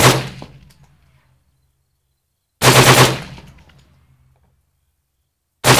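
Suppressed Textron 6.8 mm cased-telescoped battle rifle firing short full-auto bursts: a brief burst at the start, a longer one of about six shots near the middle, and another starting near the end. Each burst trails off in a fading echo.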